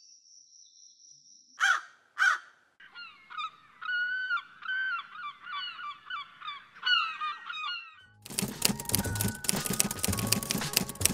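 Two short sharp sounds, then a rapid run of bird calls: short arched notes, several a second. About eight seconds in, music with a steady beat starts.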